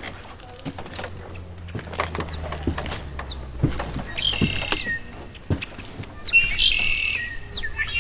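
Songbirds calling: short high falling chirps about once a second, with louder bursts of fuller warbling song about halfway through and again near the end, over a low steady rumble and scattered clicks.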